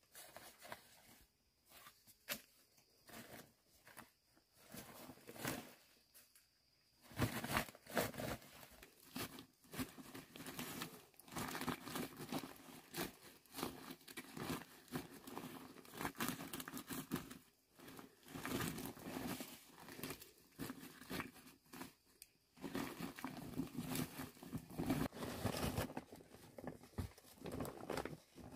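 Irregular rustling, crinkling and scraping of something being handled. It is sparse at first and becomes near-continuous after about seven seconds, with short clicks mixed in.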